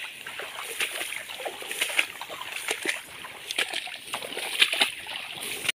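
Footsteps through waterlogged, grassy ground: irregular splashes and sloshing mixed with grass rustling against the legs.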